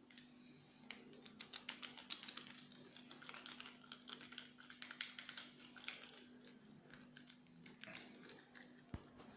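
Faint, irregular light clicking and ticking of a jammed van ignition lock being handled, with one sharper click near the end, over a faint steady hum.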